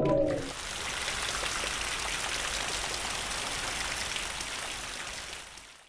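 Rain falling: a steady hiss of fine drops that fades out near the end. A low pitched tone dies away about half a second in.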